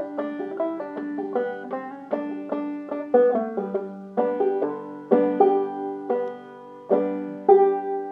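Five-string banjo played clawhammer style: a steady run of picked notes, several a second, each ringing briefly, mixed with strummed chords.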